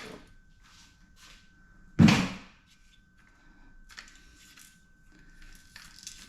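A single loud clunk about two seconds in, followed by light clicks and taps, as aluminum crutch parts are handled while being dismantled for scrap.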